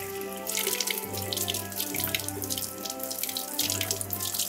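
Kitchen faucet running, its stream splashing over hands rinsing basil leaves in the sink; the water comes on about half a second in.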